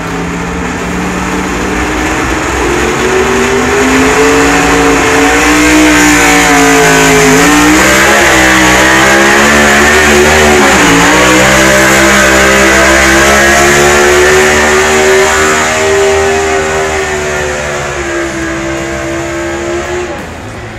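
Engine of a pulling vehicle run hard down the track against a weight-transfer sled. Its pitch climbs over the first several seconds, dips sharply twice, holds high, then eases down and drops away near the end.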